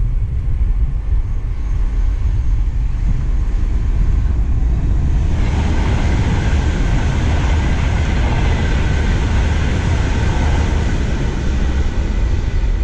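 Class 390 Pendolino electric express passing at speed: a rush of wheels on rail sets in suddenly about five seconds in, holds, and fades near the end as the train draws away. Wind buffets the microphone with a low rumble throughout.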